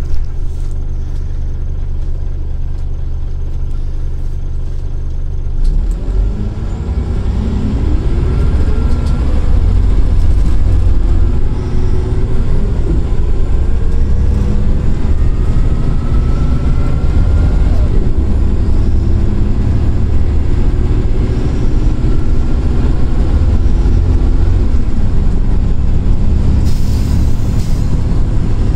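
Scania L94 coach's diesel engine idling steadily, then pulling away about six seconds in, rising in pitch several times as it accelerates up through the gears before running on at speed, heard from inside the passenger cabin. A brief hiss near the end.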